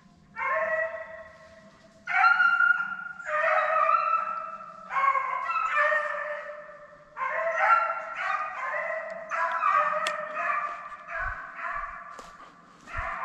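Deer hounds baying while running a deer: a string of long, drawn-out bays, one after another about every second, with voices at times overlapping.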